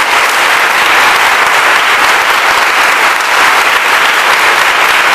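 A large church congregation applauding steadily, many hands clapping at once in a dense, continuous patter.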